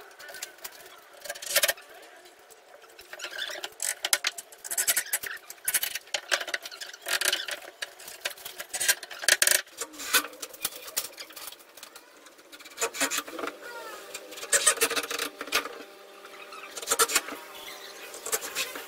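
Wooden boards being handled and fitted onto a steel-framed mezzanine floor: irregular knocks, scrapes and creaks of wood against wood and metal. A steady hum comes in about two-thirds of the way through.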